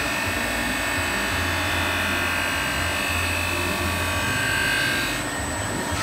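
Glass-processing machine running, its conveyor chain of pad blocks turning around a sprocket: a steady mechanical whir with a thin high whine. The hiss eases slightly near the end.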